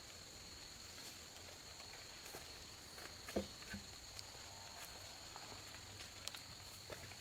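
Quiet outdoor ambience: a steady high-pitched insect drone, with a few faint scattered taps and knocks, the clearest about three and a half seconds in.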